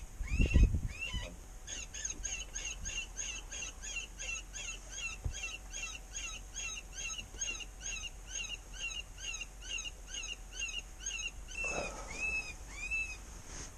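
Predator call sounding a distress cry: a long, even run of high, arching squeals, about three a second, then a few slower, lower squeals near the end. A low bump is heard at the very start.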